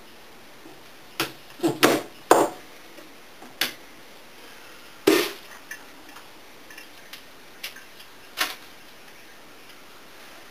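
Kitchen knife cutting thistle root against a plastic cutting board: a string of sharp knocks, loudest about two and five seconds in, then a few lighter scattered clicks.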